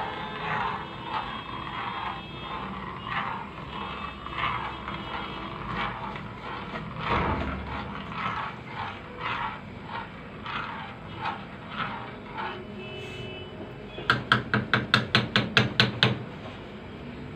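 A spoon stirring rice and vermicelli in a cooking pot, scraping in repeated short strokes. Near the end comes a quick run of about ten sharp taps.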